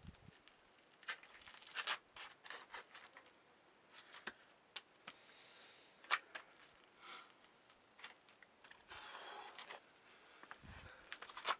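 Irregular scuffs, scrapes and light taps of shoes and hands against bare rock while climbing down a boulder, with a longer rustling scrape about nine seconds in.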